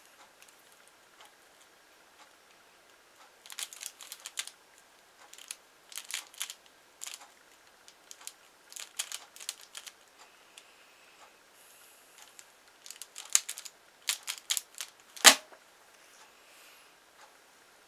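Plastic pyraminx puzzle being turned fast in a speedsolve, quick clusters of clicking and rattling turns. It ends about fifteen seconds in with one loud knock as hands slap down on a Speed Stacks timer to stop it.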